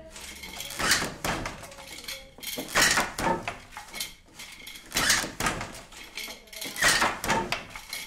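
Old wooden hand loom being worked: a burst of wooden clattering and knocking about every two seconds, four times, with lighter clicks and clacks between.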